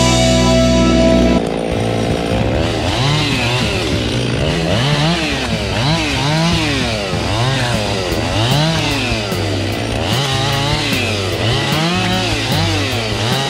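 Music for about the first second and a half, then a Husqvarna 257 two-stroke chainsaw with a 28-inch bar revved up and dropped back again and again, roughly every two seconds, as it makes a run of short cuts.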